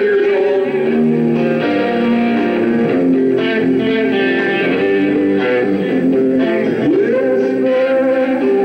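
Live rock band playing, with electric guitars to the fore; one note slides upward about seven seconds in.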